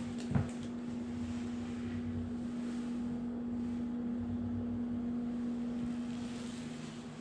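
A steady low hum with a faint rumble that swells and fades, like handling and movement noise from a handheld camera being carried, and a short knock just after the start.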